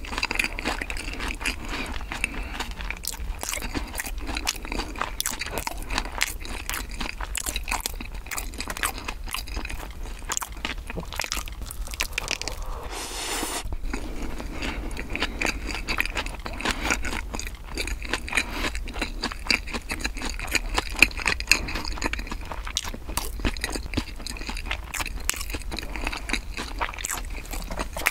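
Close-miked chewing of bakery bread: a dense run of small crunches and wet mouth clicks. About halfway through comes a short breathy hiss lasting about a second.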